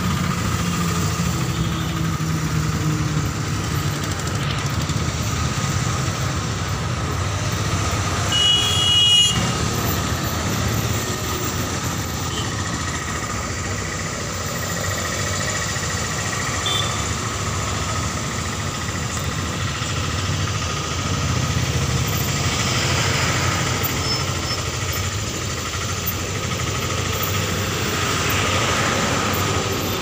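City road traffic: a steady rumble of engines and tyres from passing cars, scooters and buses. A short vehicle horn sounds about nine seconds in.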